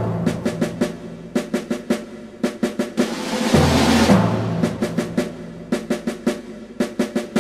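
Dramatic soundtrack music: quick, repeated drum strikes over sustained low notes, with the low notes swelling up about three and a half seconds in.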